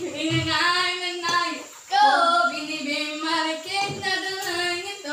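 A high, young-sounding voice singing, holding long notes.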